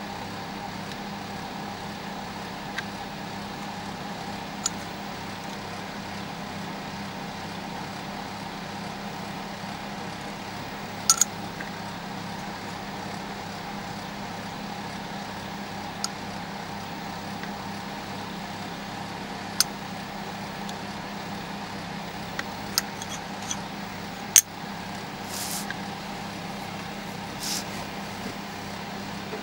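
Steady low machine hum, with a dozen or so sharp clicks scattered through it, two of them much louder than the others.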